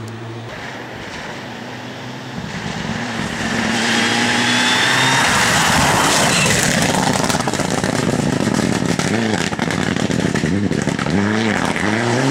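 Mitsubishi Lancer Evolution IX rally car's turbocharged four-cylinder engine driven hard. Its note is steady at first, a loud rushing noise builds about four seconds in, and near the end the revs rise and fall repeatedly through gear changes.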